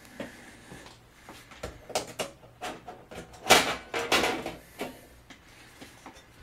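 An LCD TV's back cover panel being handled and lifted off its chassis: a series of knocks, clatters and scrapes, loudest about three and a half seconds in.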